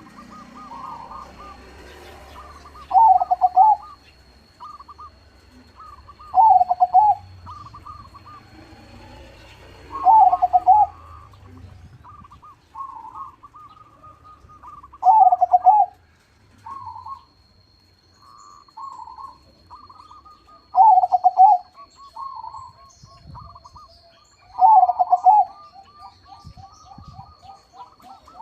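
Zebra dove (perkutut), a crossbred local-by-Bangkok bird, cooing. Strings of quick soft notes lead into loud low coos, six of them about every four to five seconds.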